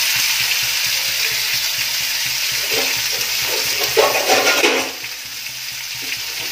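Chopped brinjal, tomato and potato sizzling in oil in a kadai while being stirred with a steel spatula. A few louder scraping strokes of the spatula come about three to five seconds in.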